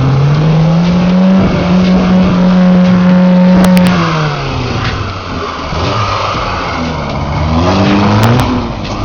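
Lada Niva's engine revving hard under load as it climbs a grassy slope off-road: the pitch rises over about a second, holds high for a couple of seconds, drops, and rises again near the end.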